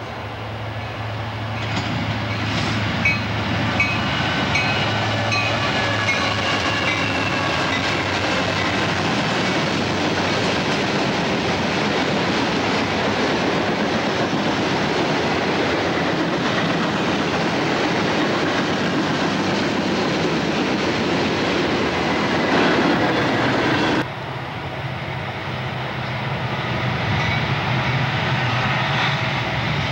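Loaded coal train passing close by: diesel locomotives and hopper cars rolling with steel wheels clacking over the rail joints and a faint wheel squeal. About 24 s in, a sudden cut to CSX diesel locomotives approaching; the lead unit has a faulty turbocharger.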